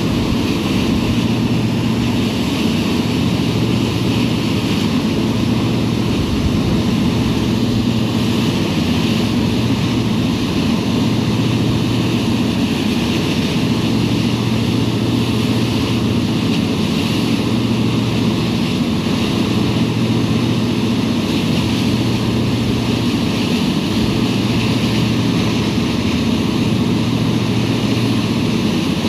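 SeaStreak high-speed ferry running at speed: a steady low drone from its engines and waterjet drives over the even rush of the churning wake water.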